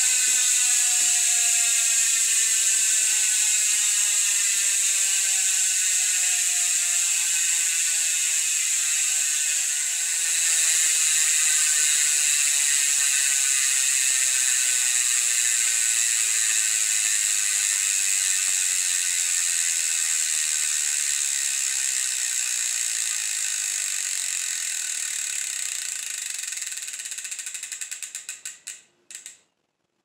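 e*thirteen SL rear hub freewheeling as the spun wheel coasts: a fast, even ratchet buzz of the freehub pawls that slows down steadily. Near the end the buzz breaks into separate clicks and stops as the wheel comes to rest.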